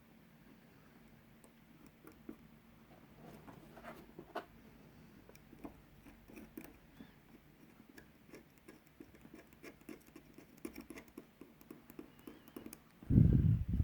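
Light, irregular clicks and scratches of cracked glass fragments and glue being picked and scraped off the back of a smartphone with a small tool. Near the end comes a loud, short, low thump.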